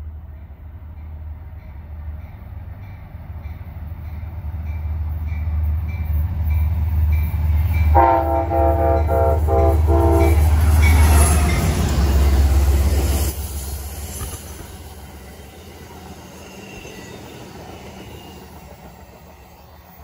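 Amtrak passenger train led by a GE Genesis P32AC-DM diesel locomotive approaching with a growing low engine rumble, sounding its multi-note horn for about two seconds around eight seconds in. The locomotive passes close with a loud rush of engine and wheel noise that drops off suddenly, then the coaches roll away more quietly.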